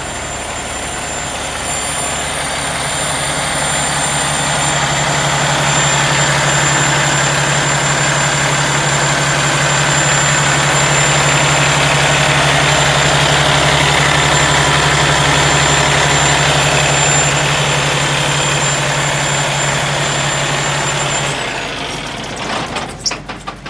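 Cummins ISX inline-six diesel in a Kenworth T680 tractor idling steadily with a deep even hum, louder midway through. The sound cuts off abruptly near the end, followed by a few knocks.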